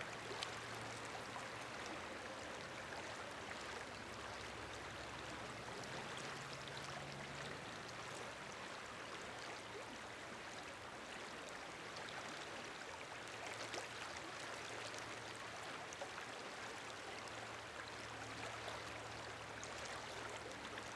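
A shallow creek flowing over riffles: a steady, faint rushing of water.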